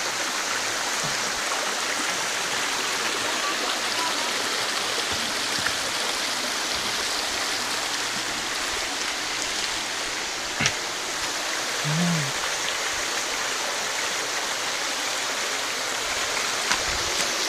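Small waterfall and rocky stream rushing steadily, with one sharp click about two-thirds of the way through.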